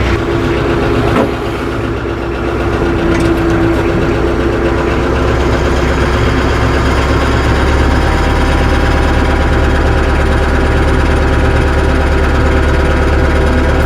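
Tractor engine running steadily as the tractor creeps forward onto a tyre chain laid on the ground. It grows slightly louder over the first few seconds, then holds steady, with a single short knock about a second in.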